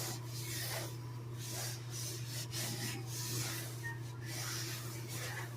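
Repeated rubbing strokes across a mildewed drywall ceiling, roughly two a second and uneven, over a steady low hum.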